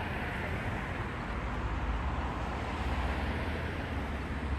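Steady traffic noise: a continuous low rumble with a hiss over it.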